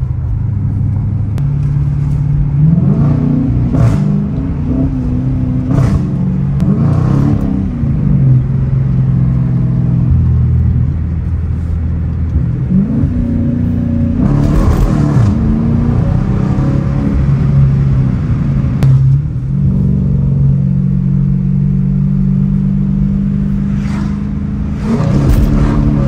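Dodge Challenger R/T's 5.7-litre Hemi V8 running under load, heard from inside the cabin with the car set to its louder track mode. The engine holds steady for stretches, steps in pitch several times and revs quickly up and back down about three, seven and thirteen seconds in and again near the end.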